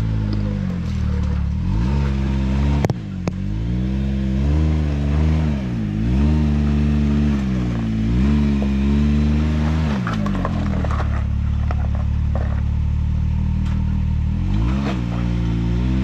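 Can-Am Maverick X3 side-by-side's three-cylinder engine revving in repeated bursts, pitch rising and falling, as it crawls up a rock ledge, with a sharp knock about three seconds in. For the last several seconds the engine holds a steady pitch, with scattered clicks and clatter.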